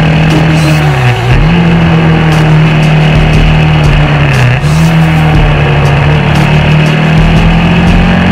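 KTM 690 Duke R's single-cylinder engine under way, its revs dipping briefly about a second in and again about four and a half seconds in before pulling back up through the bends.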